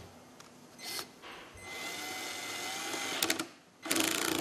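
Milwaukee 12-volt cordless screwdriver driving a screw through a metal plate into timber. A brief run, then a steady run of about a second and a half that ends in a few sharp clicks, then another short run near the end.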